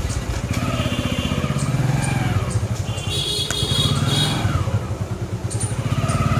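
Motorcycle engine running as the bike pulls away, its revs rising and falling a few times.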